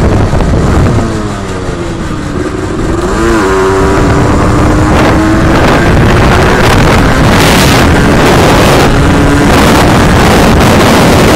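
Small vehicle engine running under way. It eases off about a second in, picks up again around three seconds in and then runs steadily, with wind rushing over the microphone.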